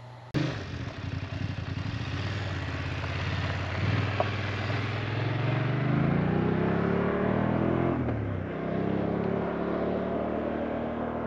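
BMW F 850 GS parallel-twin motorcycle engine accelerating, its pitch rising through the gears, then dropping as it eases off and running steadily near the end.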